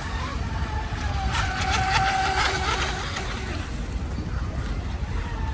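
A Delta Force Mini Storm RC speedboat's 3400KV brushless electric motor running at speed, a steady high whine whose pitch wavers slightly as the boat runs across the water.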